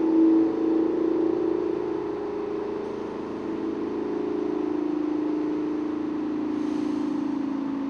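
Bus engine idling: a steady drone that sinks slightly in pitch over a few seconds.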